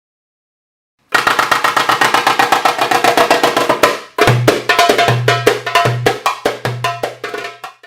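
Rapid percussion, drum and wood-block-like strikes at about ten a second, in two phrases separated by a brief break. The second phrase has four low booming drum hits under the strikes.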